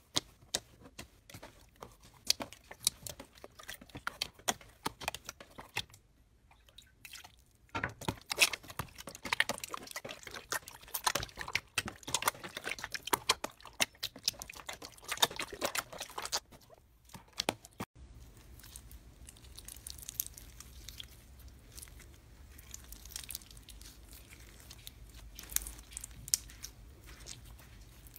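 Hands pressing and poking sticky slime, giving many small wet pops and crackles, busiest in the middle. After a sudden change about 18 seconds in, the popping is fainter over a steady low rumble.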